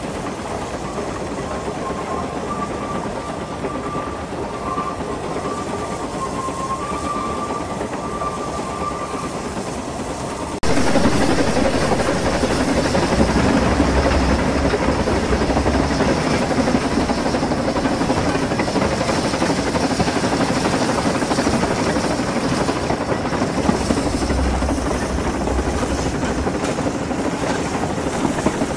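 Narrow-gauge steam locomotive Welsh Pony running, heard from its tender: a steady rumble of wheels on rail and engine noise. A broken high squeal from the wheels on the curve comes and goes in the first several seconds. About ten seconds in the sound becomes suddenly louder, with a heavier low rumble that swells and fades.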